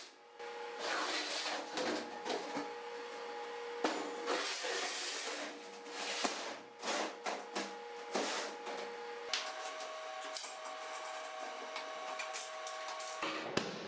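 Steel welding clamps and a steel sheet being handled on a steel welding table: irregular clanks and scraping. Under them runs a steady tone that shifts to a higher pitch about two-thirds of the way through.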